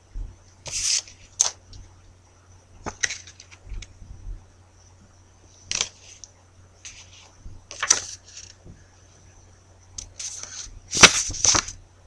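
Handwritten paper cue cards being handled close to the microphone: scattered short rustles and knocks, with the loudest cluster near the end as the cards are swapped. A steady electrical hum and a faint high whine run underneath.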